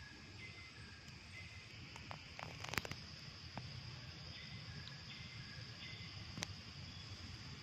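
Steady high insect drone with a low rumble underneath, broken by a few sharp clicks, the loudest about three seconds in.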